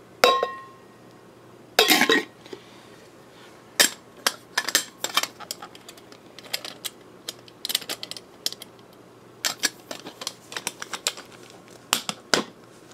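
Stanley stainless steel camp cook pot and its nesting plastic cups being handled: a sharp clink with a short ring just after the start, a heavier clatter about two seconds in, then many light clicks and knocks as the pieces touch.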